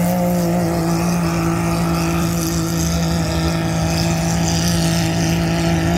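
A 1000-class mud drag ATV's engine at full throttle down the mud lane, holding a steady high pitch after a hard launch.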